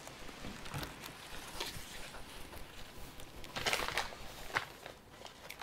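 Paper rustling and soft taps as pages of a notebook and loose sheets are handled, with a busier stretch of rustling about three and a half seconds in.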